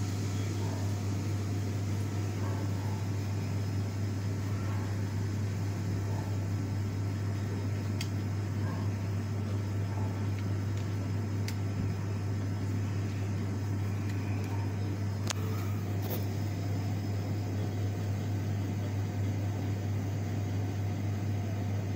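Steady low hum of a small running machine, with a few faint clicks.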